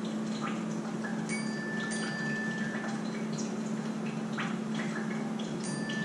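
Soft background music with scattered chime-like notes over a steady low hum.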